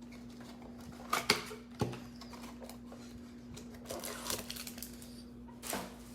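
Hands opening and handling a hanger box of trading cards: a few sharp clicks and taps of cardboard and plastic wrap, with soft crinkling, over a steady low hum.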